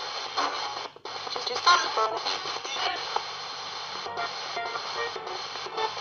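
RadioShack 20-125 portable radio used as a spirit box, sweeping the FM band: choppy snippets of broadcast music, voices and static, cut off several times a second as it jumps from station to station, with a brief dropout about a second in.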